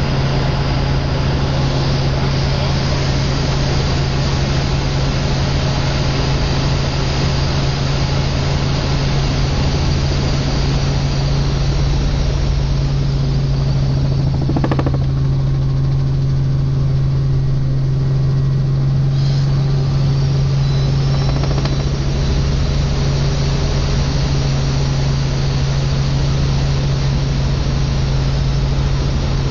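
Helicopter in flight heard from inside the cabin: a loud, steady drone of engine and rotors with a strong low hum.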